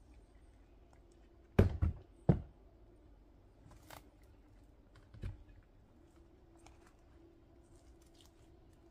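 Firewood pieces dropped into a wheelbarrow: three sharp wooden knocks in quick succession about a second and a half in, then a couple of softer knocks later.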